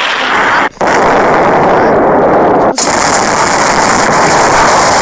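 Loud sustained automatic gunfire, so rapid that the shots run together into one continuous ripping sound, with two brief breaks: one under a second in and one near three seconds in.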